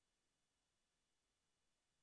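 Near silence: only faint steady background hiss.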